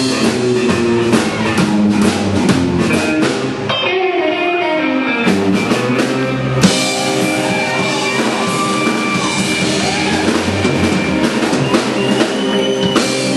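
Live rockabilly band playing: upright bass, two electric guitars and a drum kit, with busy drumming for the first few seconds. A loud hit about halfway through, then held, ringing chords with sliding guitar notes as the song winds to its close.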